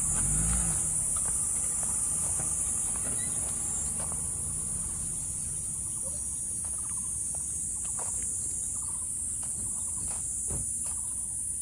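Steady high-pitched chorus of insects, with scattered footsteps on the trail and a low rumble on the microphone.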